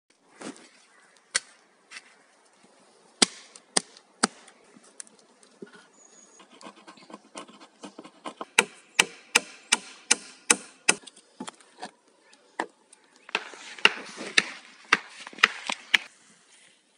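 Hand-tool work on wood and earth: a shovel digging into soil, a hammer striking planks on a wooden ladder bridge in a run of about two sharp blows a second, and an axe chopping logs.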